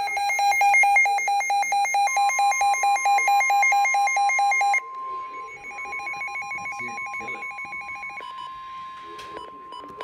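Emergency weather alert tones: rapid pulsed electronic beeping, loud for about five seconds and then quieter, with a steady single high tone, the 1050 Hz warning alarm of NOAA Weather Radio, starting about two seconds in and holding. Near the end the beeping changes to a different pattern.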